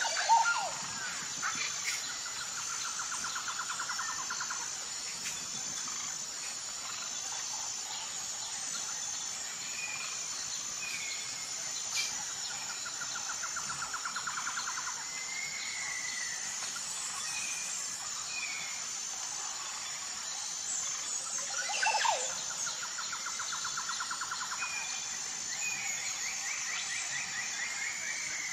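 Nature ambience: a steady high insect chorus under short chirping bird calls, with a buzzy trill that comes three times for a couple of seconds each. The loudest moments are a sharp call just after the start and another about 22 seconds in.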